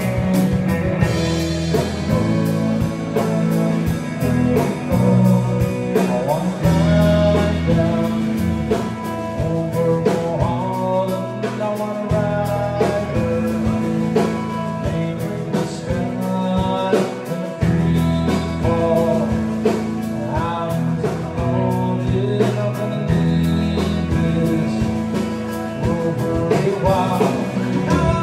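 Live rock band playing through the PA: electric guitars, bass guitar and drum kit keeping a steady beat.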